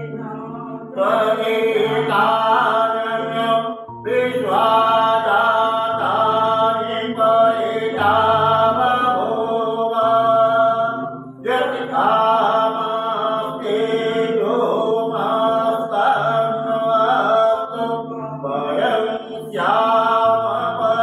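A male priest chanting puja mantras in a steady, sing-song recitation, in phrases of a few seconds with brief pauses for breath.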